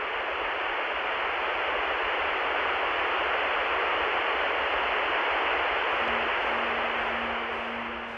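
Television static: a steady, even hiss that fades toward the end. A low steady hum comes in under it about six seconds in.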